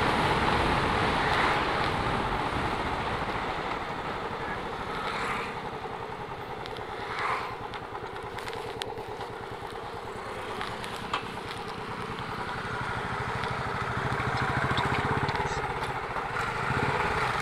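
Motorcycle engine running on the move, heard from the rider's seat. It eases off and goes quieter in the middle as the bike slows for a right turn, then picks up again near the end.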